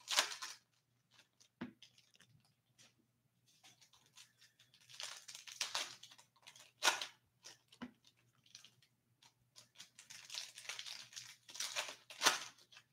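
Foil trading-card pack wrapper being torn open and crinkled by hand, in a few bursts of crackling with quieter gaps between.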